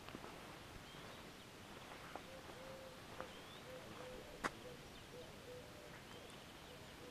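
Birds calling faintly: short rising chirps every second or two over a lower, short repeated note. One sharp click comes a little past halfway.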